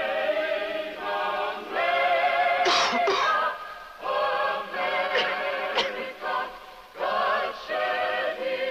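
Mixed choir of men and women singing a slow song about America, holding long notes in phrases a few seconds long with short breaks between.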